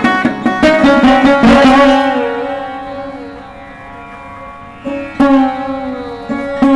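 Indian classical instrumental music on a sitar. A fast run of plucked notes opens it, then long notes slide in pitch over a steady drone, with fresh plucks near the end.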